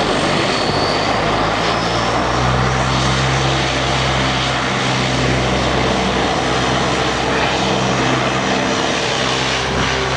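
The two Rolls-Royce Tyne turboprop engines of a Transall C-160 run as the aircraft rolls along the runway. They make a steady, loud propeller drone whose low hum grows stronger about two seconds in.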